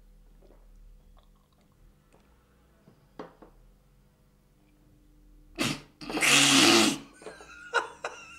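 A man bursts into a loud, breathy laugh about six seconds in, lasting about a second, then keeps laughing in short bursts. Before that there are only faint small sounds.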